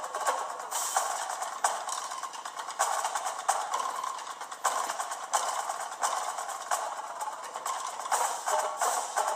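Instrumental music driven by busy percussion, with frequent sharp struck accents and almost no bass.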